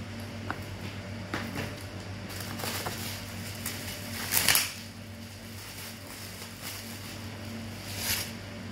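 Scattered rustles and knocks of items being handled, the loudest about halfway through and another near the end, over a steady low hum.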